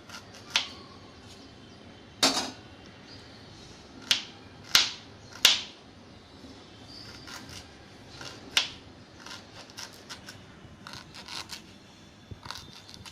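Kitchen knife chopping fresh ginger on a cutting board: irregular sharp chops, about six loud ones with fainter, quicker ones between, mostly in the later part.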